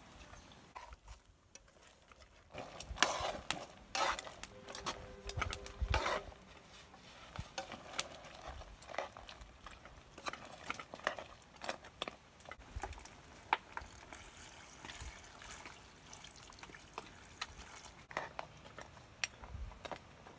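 A slotted metal spoon stirring a pot of pork and bean stew: repeated clinks and scrapes against the metal pot with the slosh of the liquid, loudest about three to six seconds in.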